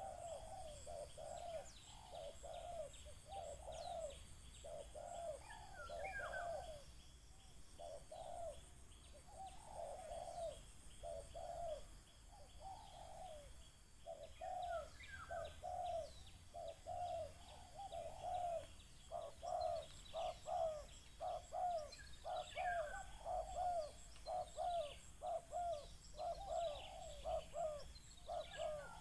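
Spotted doves (terkukur) cooing over and over in short low phrases, the calls coming thicker and louder in the second half. Small birds chirp higher above them now and then.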